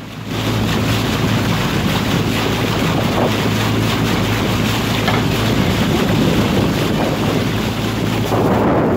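Wind buffeting the microphone over the steady low hum of the following launch's outboard motor and the rush of water, rising sharply at the start.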